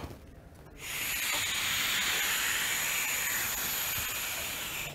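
Steady hiss of air blown hard through a straw into an inverted funnel, starting about a second in. The air rushes out around the rim of a light ball held in the funnel's mouth; the fast-moving air lowers the pressure and keeps the ball from falling.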